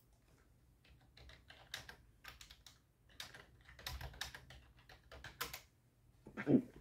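Several seconds of rapid, irregular clicking and tapping, then a single hiccup about a second before the end, the loudest sound here.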